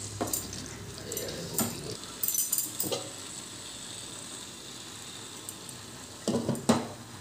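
Masala-coated chicken sizzling in a frying pan while a wooden spatula stirs and scrapes through it, with several short scrapes in the first three seconds. About six and a half seconds in, a glass lid is set down on the pan with two loud knocks.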